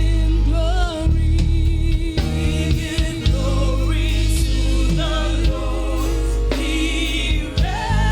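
Gospel praise-and-worship music: voices singing over a sustained keyboard chord and a deep bass line.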